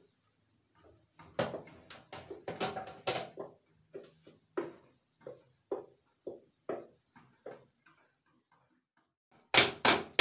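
A spatula scraping and knocking against a bowl as cake batter is poured out into pans: a cluster of scrapes and knocks, then a run of about eight short, evenly spaced knocks, and two louder knocks near the end.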